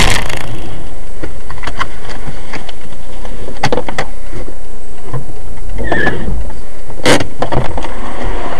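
Loud, distorted vehicle noise from a dash-cam-style recording, with a series of short knocks and bangs spread through it and a brief squeak about six seconds in.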